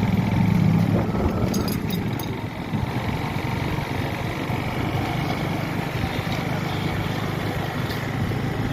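A motor vehicle's engine running steadily, a low rumble, with a few faint clicks about two seconds in.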